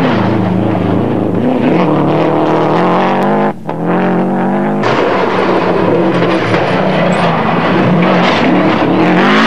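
Subaru Legacy rally car's turbocharged flat-four engine running at high revs, its pitch rising and falling through the gears, with a brief lift about three and a half seconds in.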